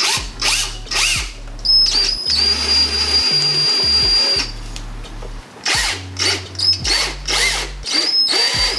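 Cordless drill running in short runs and one longer run of about three seconds, with a steady high whine, boring a hole through the firewall rubber boot beside the wiring harness.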